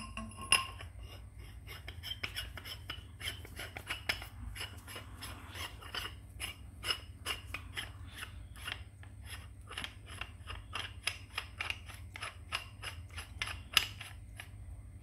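Light metallic clicks and scrapes as a stainless-steel valve is screwed by hand onto the threaded end of an air cylinder, about three or four irregular ticks a second, with sharper clicks about half a second in and near the end.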